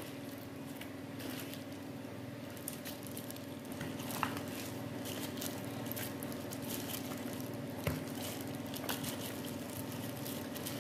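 Wet squelching and soft slapping as whole small fish are turned by a gloved hand in a plastic bowl of marinade, in scattered short bursts that get busier after a few seconds. A steady low hum runs underneath.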